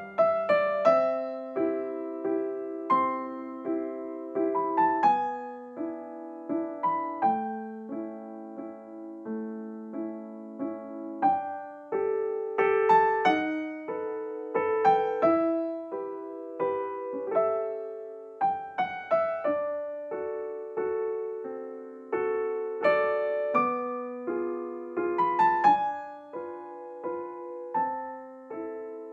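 Background piano music: a slow melody of struck notes over chords, each note ringing and fading.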